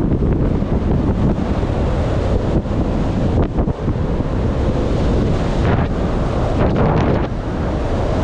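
Wind buffeting the microphone of a camera riding along on a fast-moving electric scooter: a loud, steady rumble, with a couple of brief knocks about three and a half seconds in and again near the end.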